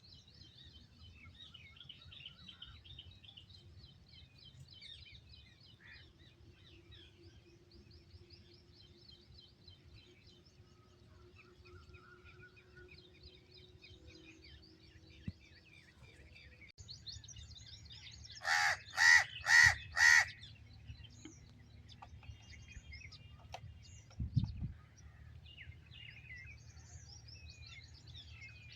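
Small birds chirping and twittering throughout. About two-thirds of the way in, a crow caws four times in quick succession, the loudest sound, followed a few seconds later by a low thump.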